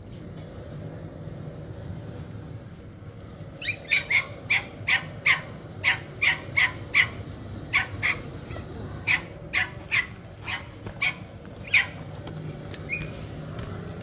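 A dog barking over and over, about two barks a second, starting about four seconds in and stopping near the end.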